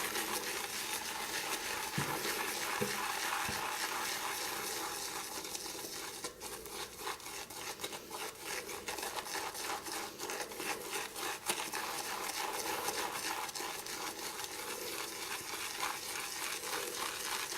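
Shaving brush loaded with hard shaving soap being swirled fast in an empty mug to whip up lather, a steady scratchy swishing. The lather is still too dry at this stage.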